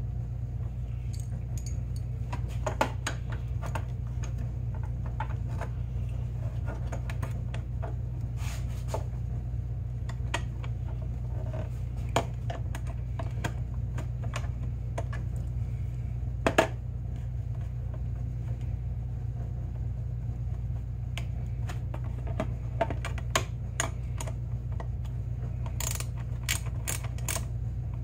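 Scattered clicks and light metallic clinks of a hand wrench working a bolt on a snowmobile's oil reservoir mount, in small clusters, over a steady low hum.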